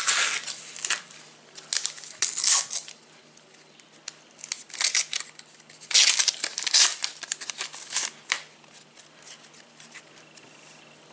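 Wrapper of a Panini Adrenalyn XL trading-card pack being torn open and crinkled: a handful of short rips and rustles that die down near the end.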